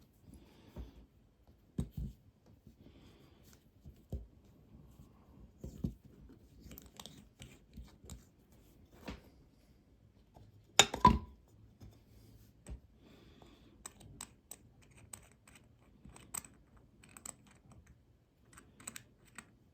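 Small scattered clicks, taps and light scrapes of a vintage Seiko watch and small watchmaking tools being handled on a bench as the case back is opened. A sharper double knock, the loudest sound, comes about eleven seconds in.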